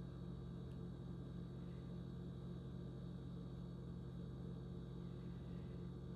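Steady low hum with several held tones, unchanging and without any distinct sounds.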